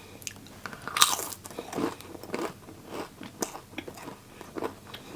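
Close-up crunching and chewing of a crunchy snack: a person bites into it and chews, with irregular crisp crunches about twice a second, the loudest about a second in.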